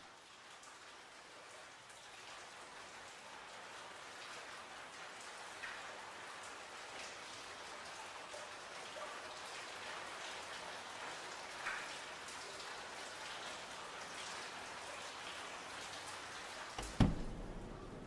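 Steady patter of rain with scattered louder drops. A single sharp thump sounds about a second before the end.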